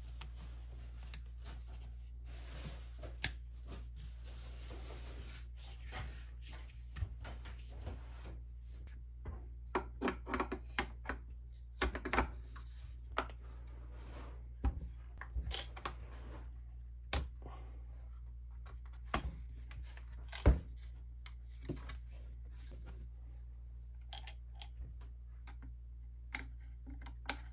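Scattered clicks, knocks and rubbing as the polymer handguard and steel parts of a Draco NAk9X AK-pattern pistol are handled and fitted together, over a steady low hum. The clicks come thickest a little after ten seconds in, and there is one sharper knock about twenty seconds in.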